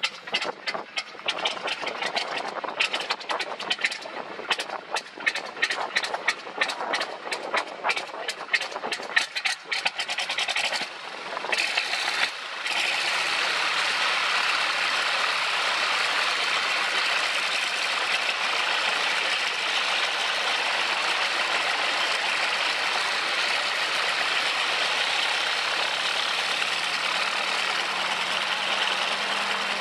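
Vintage aircraft piston engine starting. For about twelve seconds it fires in rapid, uneven pops and bursts, then it catches and settles into a steady run.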